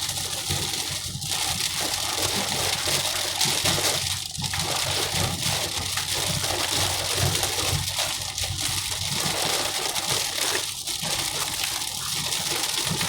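Heavy rain and road spray on a moving car, heard from inside the cabin: a steady, dense hiss over a low rumble.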